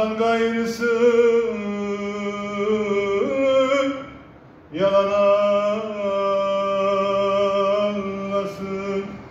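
A man singing unaccompanied, holding long drawn-out notes in two phrases of about four seconds each with a short break between them, his voice sliding between held pitches.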